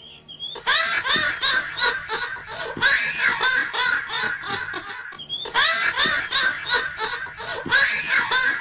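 Scary witch's cackling laugh, a rapid run of high-pitched 'ha-ha' bursts, in two long bouts with a brief pause about five seconds in.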